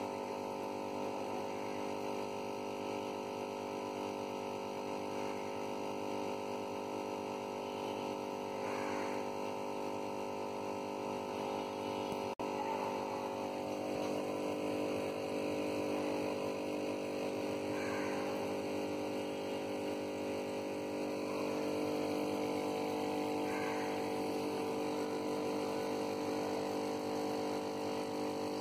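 Aquarium air pump humming steadily, a constant electrical drone made of several fixed tones, with a brief break about twelve seconds in.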